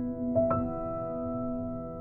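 Soft background piano music: a couple of notes struck near the start, then held and slowly fading.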